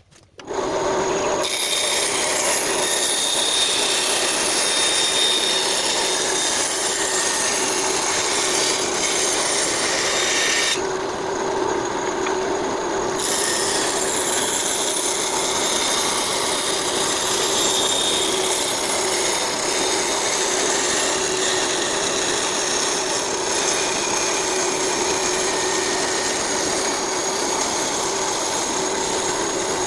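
Small power tool running steadily, working wood, with a continuous grinding, rasping noise over its motor hum.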